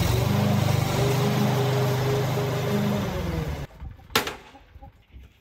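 Petrol walk-behind lawn mower engine running steadily through tall grass, its pitch dipping slightly under load, then stopping abruptly about two-thirds of the way through. A single sharp click follows.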